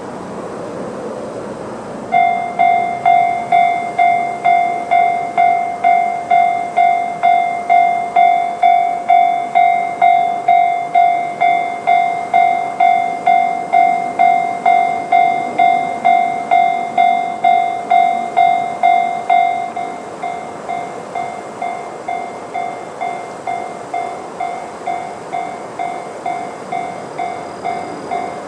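Japanese level-crossing electronic alarm bell sounding the JR standard tone, the warning of an approaching train. It starts about two seconds in and repeats at about two strikes a second, then drops to a noticeably quieter level about twenty seconds in and keeps ringing.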